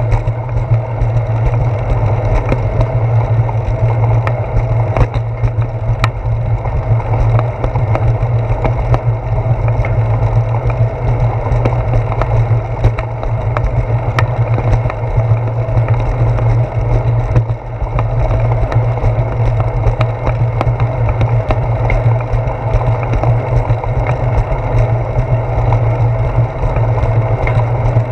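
Bicycle rolling along a concrete sidewalk, picked up through a handlebar-mounted GoPro Hero 4: a steady low rumble of tyres and frame vibration, with frequent small clicks and knocks from the pavement.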